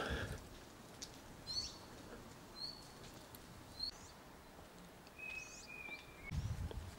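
Songbird calls: a few short high chirps about a second apart, then one held whistled note lasting about a second. Some low thumps follow near the end.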